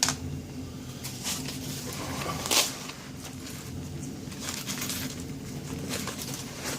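Small metal clicks and taps of steel tweezers working the pins out of a dismantled Lockwood 270S lock cylinder, with the sharpest tap about two and a half seconds in. A steady low hum runs underneath.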